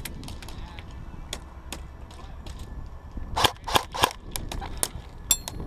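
Airsoft guns firing single shots: scattered sharp cracks, with a quick run of about four louder ones about three and a half seconds in.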